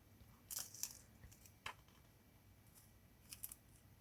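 Artists' masking tape being slowly peeled off not-quite-dry watercolour paper: a few faint crackles and ticks, about half a second in, again a little later, and a pair near the end.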